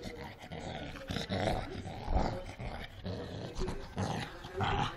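Cocker spaniel growling in irregular rough bursts as it wrestles with a cloth toy in its mouth.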